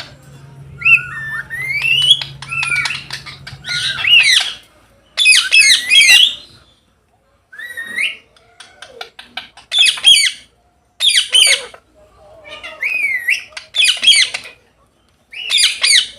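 Indian ringneck parrots squawking in short, repeated bouts of gliding, screechy calls, with quick clicking runs and brief pauses between bouts.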